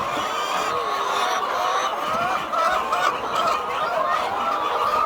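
A flock of chickens clucking and calling, many overlapping voices at once.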